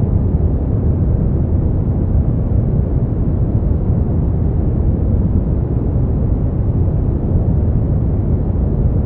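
Brown noise: a deep, steady hiss, strongest in the bass and thinning out toward the treble, with no changes or events.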